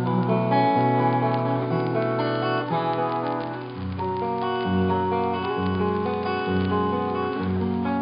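Solo acoustic guitar playing an instrumental passage, chords strummed and picked, with a low bass note struck about once a second in the second half.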